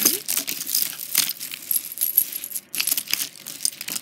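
Beads of a long necklace and a tangle of costume jewelry clicking and jangling together as the necklace is dragged and untangled from the pile, many quick irregular clicks.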